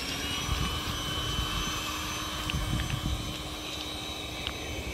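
A machine's steady hum and high whine, its pitch climbing just as it starts and then holding level, over an uneven low rumbling noise.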